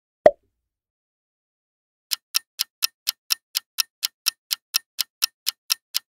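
A single short, sharp transition sound effect as the answer text slides away. After a pause, a countdown timer's clock-ticking sound effect starts, with evenly spaced ticks at about four a second.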